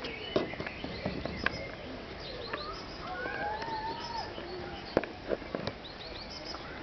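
A pet bird calling, with short high chirps and a longer wavering call about halfway through, and several sharp clicks.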